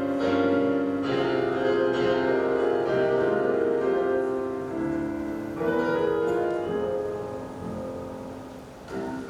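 Piano playing a slow introduction of sustained chords, the last chord dying away near the end.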